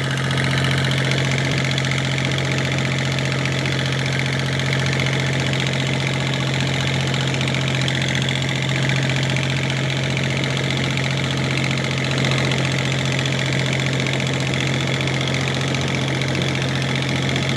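A boat engine running steadily at a constant low, even pitch.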